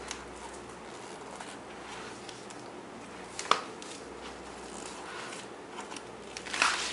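A small child handling a cardboard picture book on a wooden floor: soft rubbing and shuffling, one sharp tap about three and a half seconds in, and a short cluster of scrapes and knocks near the end, over a steady background hiss.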